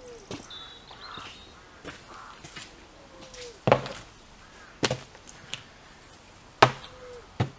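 Plastic plant pots being set down on a wooden bench: a few sharp knocks, the loudest in the second half.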